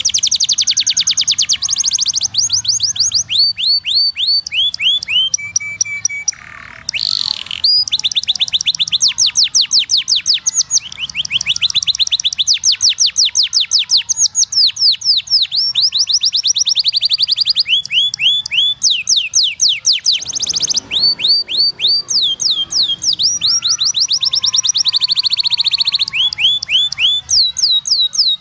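White domestic canary singing a long song of fast trills. Each trill is a run of quick, evenly repeated down-sweeping notes, and the bird switches to a new trill every second or two, with a brief break about six seconds in.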